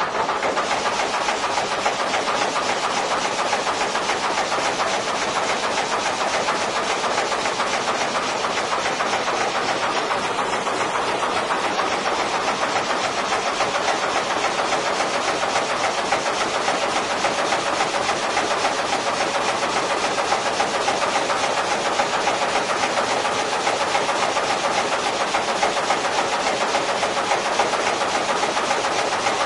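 Historic sawmill machinery running steadily, with a fast, even mechanical clatter.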